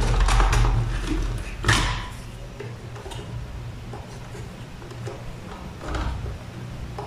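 Handling noises of wiring work on a wooden board: a few knocks and rustles, the loudest in the first two seconds and another about six seconds in, over a faint low hum.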